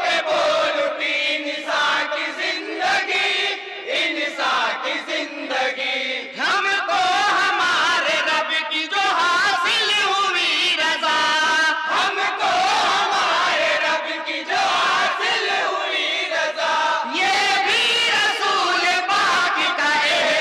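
A group of men singing a naat in chorus, many voices chanting the verses together in unison.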